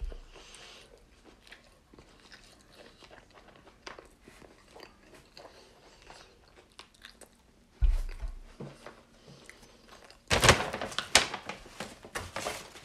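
A person chewing a mouthful of salmon cake sandwich close to the microphone, with soft mouth clicks. About eight seconds in there is a low thump, and in the last two seconds a louder burst of rustling and knocks.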